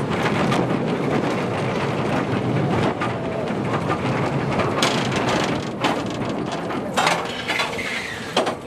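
Intamin bobsled coaster car running through its trough: a steady rumble and rattle of the wheels and car, with a few sharp knocks and clatters from about five seconds in.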